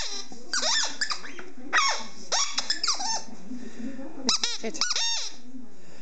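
Rubber squeaky ball (JW Pet iSqueak) squeaking over and over as a dog chomps on it, in quick clusters of short squeaks that rise and fall in pitch.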